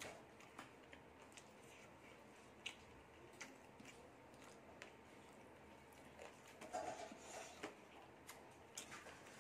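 Faint scattered clicks and soft squishing of fingers mixing rice and chicken curry on a ceramic plate, with a brief louder stretch about seven seconds in.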